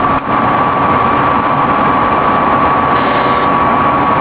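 Aircraft engine noise heard inside the cabin during the descent to land: a steady drone with a constant high whine over it, briefly dipping just after the start.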